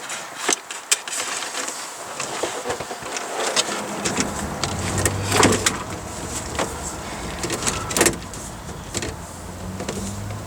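Electrical cords and wires being handled and moved by hand: scattered clicks, knocks and rustles. A low steady hum comes in about four seconds in.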